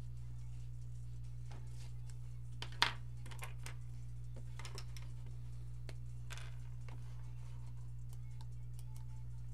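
Scattered light clicks and taps at a drawing desk, with one sharper click about three seconds in, over a steady low hum.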